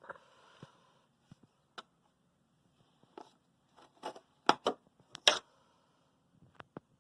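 A string of short clicks and knocks, with a brief rustle at the start, several of them close together and loudest about halfway through: handling noises.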